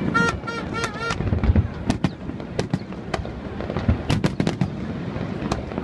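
Aerial fireworks going off in a display: a rapid, irregular series of sharp bangs and crackles from bursting shells. About a second in there is a short pulsing pitched tone.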